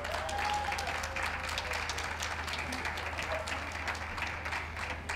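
Audience applauding steadily, a dense even patter of many hands clapping.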